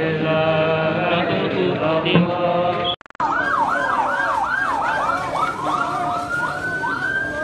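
A crowd of men chanting in unison, cut off about three seconds in. Then an emergency vehicle siren yelping in fast up-and-down sweeps, changing to one slow rising and falling wail near the end.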